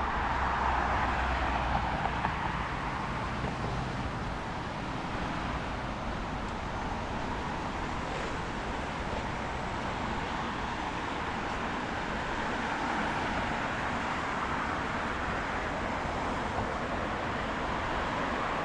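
Wet city street ambience: a steady hiss of rain and traffic on wet road, with a vehicle engine's low hum in the first few seconds that fades away.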